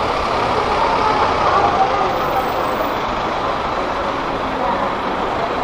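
Street traffic noise, with the engine of a heavy road vehicle such as a bus or truck running close by.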